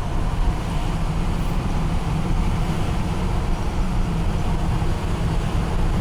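Old Ford F100 pickup driving at road speed, heard from inside the cab: a steady drone of engine and road noise, heaviest in the low end.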